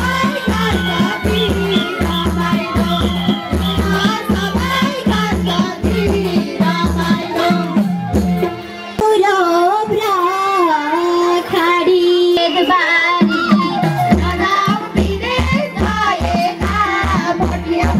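Nepali folk song for dancing: singing and melody over a quick, steady hand-drum beat with rattles. About halfway through the drums stop for several seconds while the melody carries on alone, then the beat comes back.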